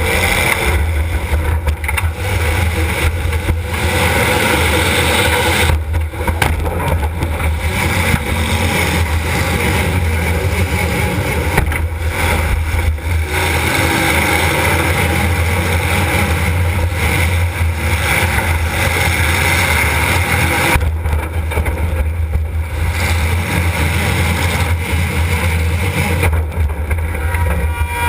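Demolition derby car's engine running loud and steady, heard from inside the car, with a heavy low rumble.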